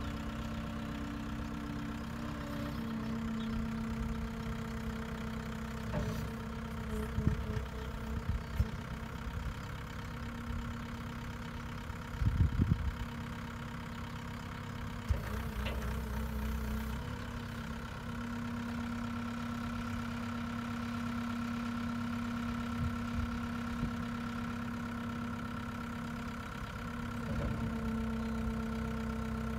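Gehl 4640 skid-steer loader's diesel engine running steadily while the loader arms raise and tilt the bucket, its pitch shifting a few times. A few short clunks and knocks are heard, the loudest cluster about 12 seconds in.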